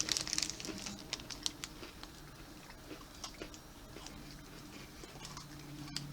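Quiet chewing of chocolate-cream sandwich cookies: scattered small crunches and clicks, with a little crinkling of the wrapper in the first second.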